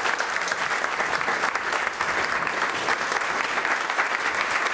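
A roomful of people applauding: many hands clapping in a dense, steady patter without a break.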